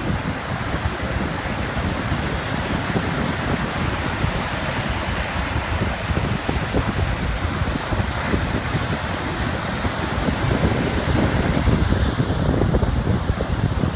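Ocean waves lapping on a beach, a steady wash of surf, with wind buffeting the microphone and growing stronger near the end.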